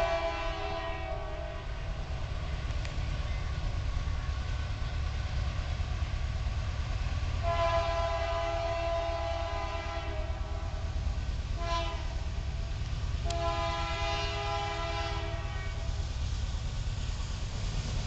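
Union Pacific diesel locomotive's multi-chime air horn sounding the grade-crossing signal: the end of a long blast, then a long blast, a short one and a final long one. A steady low rumble from the train runs underneath.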